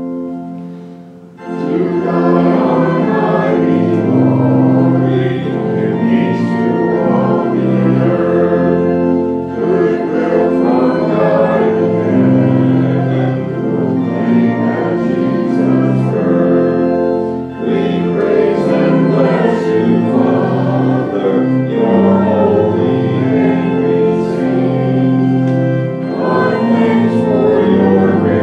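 Organ accompanying a congregation singing a liturgical song or hymn. The organ plays alone for about a second, then the voices come in, singing in phrases with short breathing pauses between them.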